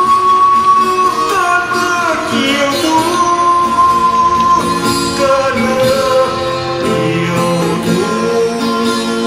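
Slow ballad music with guitar accompaniment; the melody moves in long held notes with slides from one pitch to the next.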